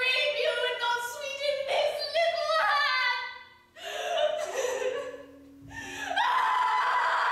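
A woman's high-pitched voice crying out in long, drawn-out, sing-song phrases, broken by two short pauses a little past halfway.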